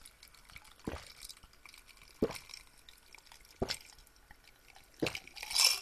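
Gulps of a drink from a glass mug: four swallows, about one every second and a half. Near the end there is a louder breathy noise.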